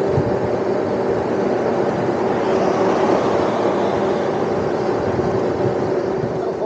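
Wind rushing over the microphone and tyre noise from a moving electric dirt bike, with a steady motor whine that is strongest in the first second.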